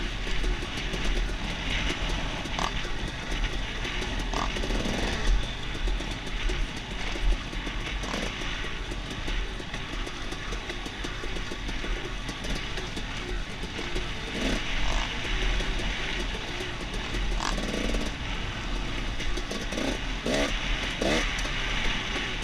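Dirt bike engine running on a bumpy downhill trail, with heavy wind rumble on a helmet-mounted microphone and scattered knocks and rattles from the bike over rough ground. The engine rises and falls briefly a few times near the end.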